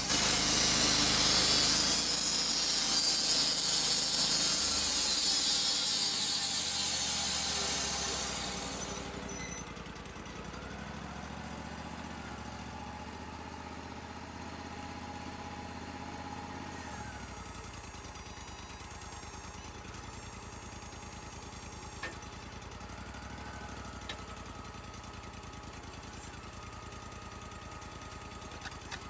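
Wood-Mizer LT-35 portable bandsaw mill's blade cutting through a cedar log, a loud hissing rasp that ends about nine seconds in. The mill's engine then keeps running steadily at a lower level, with a few light clicks.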